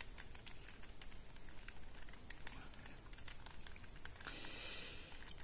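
Plastic pieces of a QJ Super Square-1 puzzle clicking and clacking lightly as its layers are turned and shifted by hand, with a short scraping slide about four seconds in.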